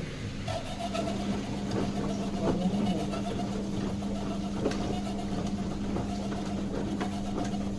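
Samsung washing machine running, its motor humming at a steady pitch that sets in about a second in, with a few scattered light clicks.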